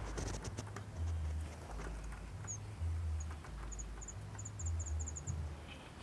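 Young caged birds giving quick, very high, thin begging chirps in short clusters while being hand-fed, with a few clicks of fingers on the cage near the start and a low handling rumble on the microphone.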